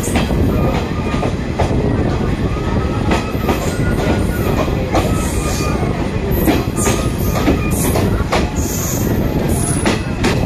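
Passenger express train running along the rails, heard from its open doorway: a loud, steady rumble broken by irregular clacks of the wheels over rail joints, with a couple of brief high wheel squeals near the end.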